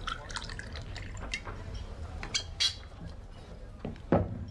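Whiskey poured from a bottle into a shot glass, a trickle with small clicks and a couple of short clinks about halfway through. A sharp knock near the end is the loudest sound.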